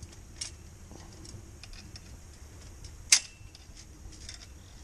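Scattered light metallic clicks and ticks from ratcheting one-handed trigger bar clamps tight against a chain link fence, with one sharp, loud click about three seconds in.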